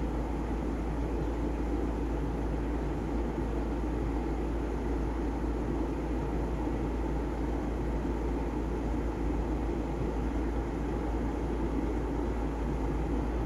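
Steady low outdoor rumble of background noise, even throughout with no distinct events.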